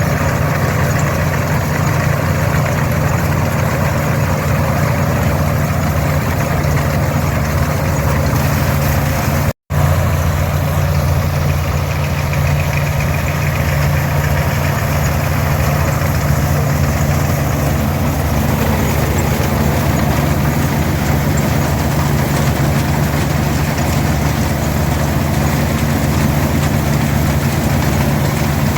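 International 460 diesel tractor running steadily while pulling an International 82 pull-type combine, with the engine's low drone mixed with the combine's machinery noise; a momentary gap in the sound about ten seconds in.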